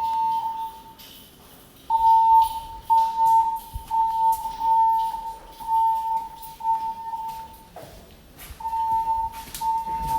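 Building fire alarm voice-evacuation system sounding its alert tone: a steady high tone in repeated pulses of about a second, breaking off briefly about a second in and again near eight seconds. It signals a fire emergency evacuation during an alarm test.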